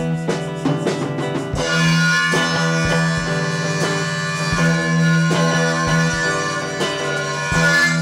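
Instrumental background music: sustained notes over a steady low drone, with a fuller layer of higher notes coming in about a second and a half in.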